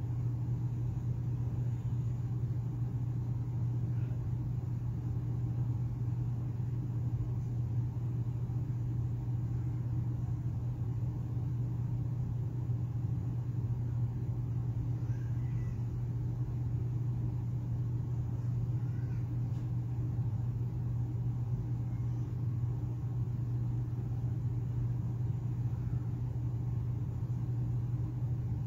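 Steady low background hum at an even level, with a few faint soft sounds now and then.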